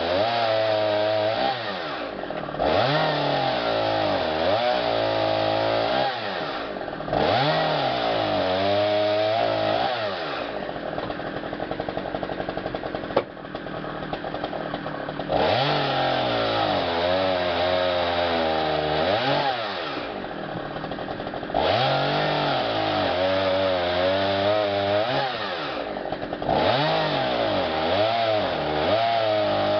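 Chainsaw revving up to full throttle about five times for a few seconds each, its pitch wavering under load as it cuts through wood, and dropping back to idle between the cuts, with a longer idle stretch near the middle.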